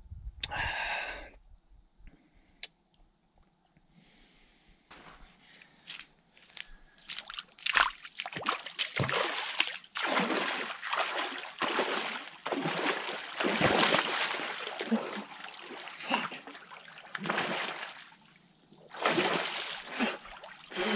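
Water splashing and sloshing in irregular bursts with short pauses, starting about five seconds in.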